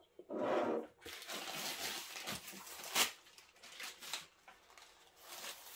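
Rustling and crinkling of thin warqa pastry sheets and the paper beneath them being handled and pulled from a stack, with a sharper crackle about three seconds in.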